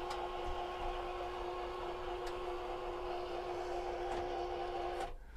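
Somfy electric motor of a motorised aluminium windscreen blind humming steadily as the blind lowers, then stopping suddenly about five seconds in as the blind reaches the end of its travel.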